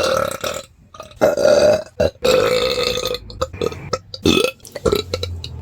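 A person burping repeatedly: a run of long burps with short gaps between them, the longest lasting about a second in the middle.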